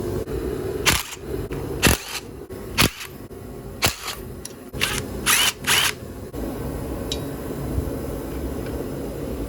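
A run of about eight sharp metallic clicks and scrapes from hand tools working on a dirt bike's radiator pipes and hose clamps. They fall between about one and six seconds in, over a steady low hum.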